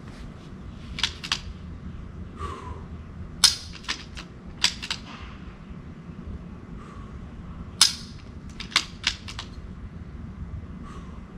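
.22 rimfire rifle fired twice, about four seconds apart, with fainter clicks of the rifle's action being worked between the shots.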